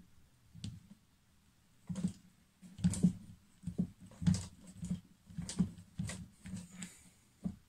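Small hard speargun parts, the reel-support mount and its screw, being handled and fitted by hand, giving a string of irregular light clicks and knocks that starts about two seconds in.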